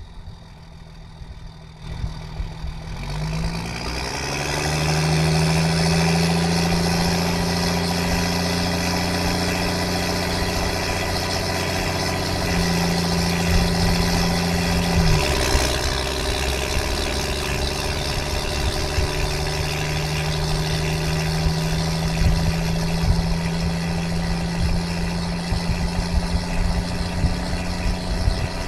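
The exhaust note of a 1994 Dodge Ram 3500's Cummins 5.9 L 12-valve inline-six turbo diesel as the truck drives. The engine note climbs about three seconds in and then holds steady. It drops off briefly about fifteen seconds in, then comes back and runs steady again.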